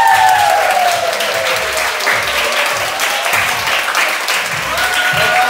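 A group of people clapping their hands, with a long high vocal call that falls in pitch over the first second or so and another short held call near the end.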